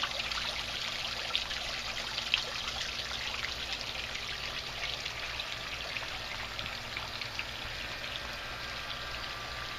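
Garden fish-pond fountain: water splashing and trickling steadily into the pond, growing a little fainter toward the end.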